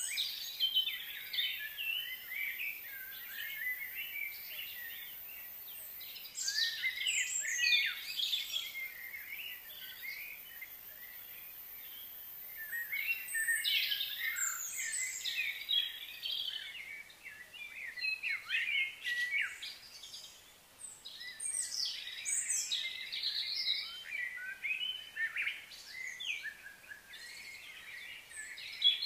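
Wild birds chirping and singing in overlapping flurries of quick, high notes that come and go every few seconds.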